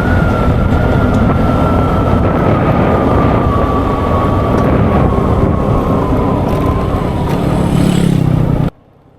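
A Vespa scooter being ridden, its engine noise mixed with wind rush, under a whine that slowly drops in pitch as it eases off. The sound cuts off abruptly near the end.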